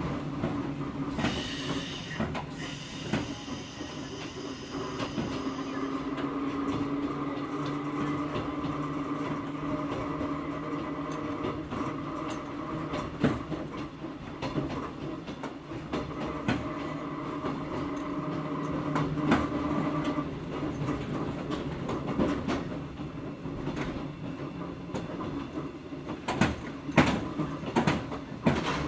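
A Hakone Tozan Railway Moha 1 electric railcar running, heard from inside the car. Its nose-suspended traction motors and gears give a steady whine through the middle. A brief high wheel squeal comes near the start, and rail-joint clicks grow thicker near the end.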